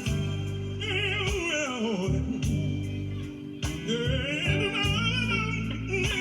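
Gospel music: a voice sings long descending runs with heavy vibrato, twice, over sustained low chords.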